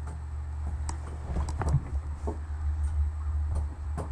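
A steady low hum with scattered light knocks and taps over it.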